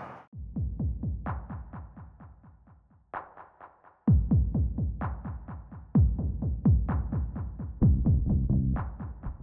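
Electronic background music with a fast, steady beat; deep kick drums come in fully about four seconds in.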